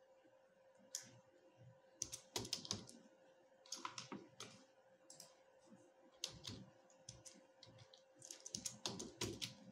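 Computer keyboard typing in short runs of keystrokes with pauses between them, over a faint steady hum.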